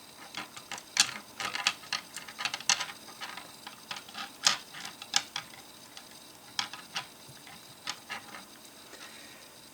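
LEGO Technic plastic parts clicking and clattering as cross axles are pushed into crosshole connectors: a run of irregular sharp clicks that thins out near the end.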